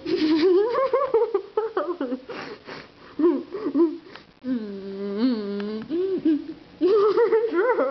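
A girl's high-pitched, wheezing laughter, with a mouth full of cookie and milk. Near the middle it gives way to a steady, held hum for about a second and a half, then the laughter picks up again.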